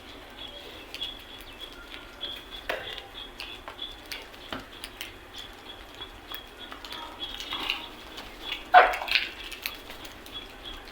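Crows cawing, a few harsh calls with the loudest about two-thirds of the way through, over a steady run of short, high chirps from smaller birds.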